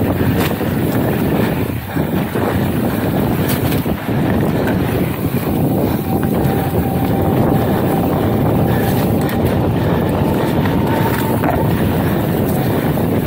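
Wind buffeting the microphone over mountain bike tyres rolling fast on a sandy dirt trail, a steady rush with small bumps, and a faint thin whine for several seconds in the middle.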